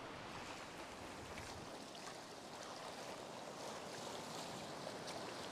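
Shallow ocean surf washing up the beach, with splashing in the wash as a hooked fish is dragged through it.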